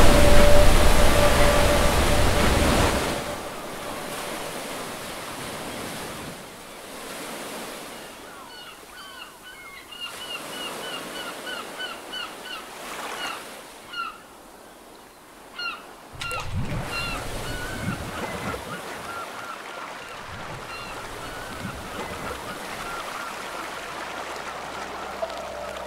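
Sea waves with seagulls calling. A wave crashes loudly at the start and ebbs away, leaving a quieter wash of surf under quick series of short, repeated gull cries; another wave surges in about two-thirds of the way through.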